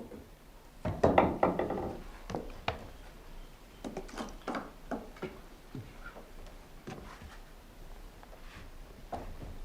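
Irregular knocks and clatter: a quick cluster about a second in, then single knocks scattered every half second to a second.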